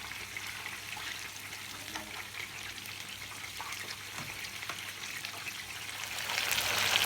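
Hot oil and ghee sizzling in a frying pan as chicken pieces shallow-fry: a steady hiss with scattered crackles, growing louder near the end.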